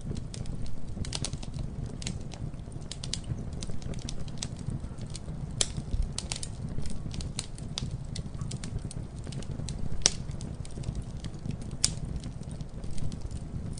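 Campfire burning with irregular crackles and pops over a steady low rumble of the flames, a few sharper snaps standing out.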